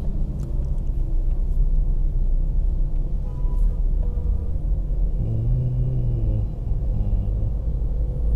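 Steady low rumble of a vehicle driving along a road.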